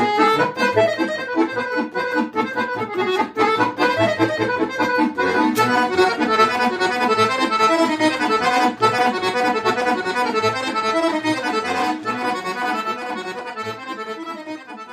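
Chromatic button accordion playing a fast Serbian kolo solo: quick runs of melody notes over a steady bass pattern. The playing grows quieter over the last few seconds as the tune winds down.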